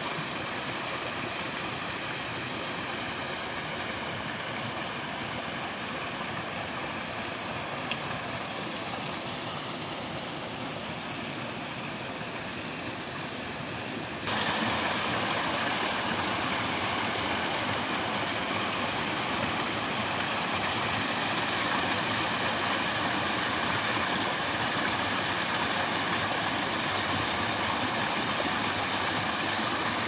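Small waterfall on a mountain stream, water pouring over rocks into a pool with a steady rush. About halfway through the rush jumps suddenly to a louder level and stays there.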